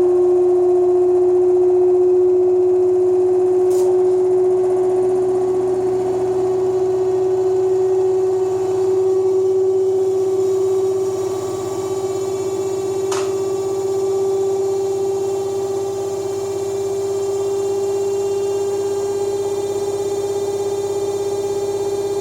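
Electrolux LSE09 washer-dryer in its spin cycle, giving out a loud, steady whine that edges slowly higher in pitch, with two sharp clicks along the way. This is the excessive spin noise the owner complains of.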